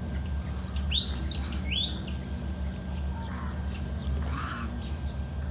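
A bird chirping: a quick run of about five short, high chirps in the first two seconds, then a couple of fainter calls, over a steady low rumble.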